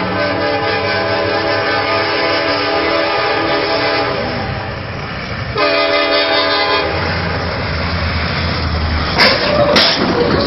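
Locomotive air horn blowing a long, steady blast that fades about four to five seconds in, then a second, shorter blast. The horn gives way to the rumble of the train, and two sharp bangs come near the end.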